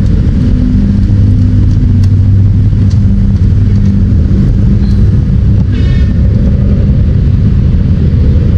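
Honda CB400 Super Four's inline-four engine running steadily at a low, even speed.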